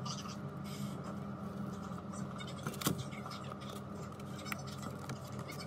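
Thin metal pry tool scraping and clicking along the edge seam of a Huawei Mate 30 Pro as it is worked in between frame and glass. The scrapes are short and scattered, with one sharper click about three seconds in, over a steady low hum.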